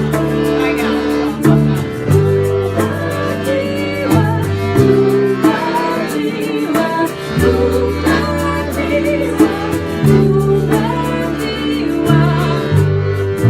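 Live ensemble music: guitar and sustained bass notes under a melody with vibrato, from bowed strings or a voice, over a steady beat.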